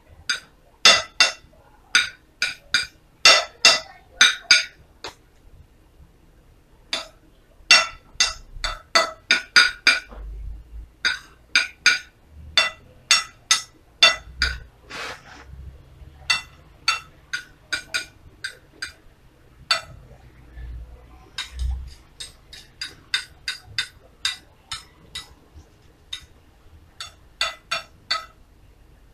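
Metal spoon clinking and tapping on a ceramic plate as corn kernels are spooned out and pushed into place: quick runs of sharp clinks with short pauses between them.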